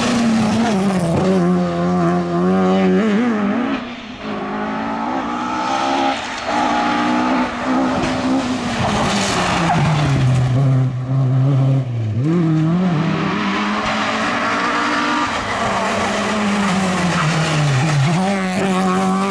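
Ford Escort rally car engine revving hard, its pitch climbing and falling again and again as the driver shifts and lifts, with the tyres skidding as the car slides.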